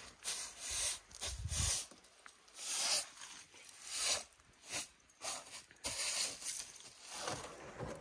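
Broom sweeping sawdust off a freshly sawn eastern red cedar slab: repeated brisk swishes of the bristles on the wood, about one a second, with a few low thuds.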